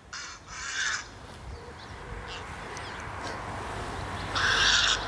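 Recorded grey heron calls played back quietly: one call at the start and another near the end.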